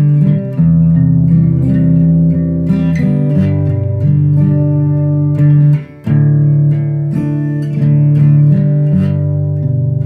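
Acoustic guitar strummed in a slow, steady rhythm, the chords changing every second or so, with a short break in the strumming a little before halfway through.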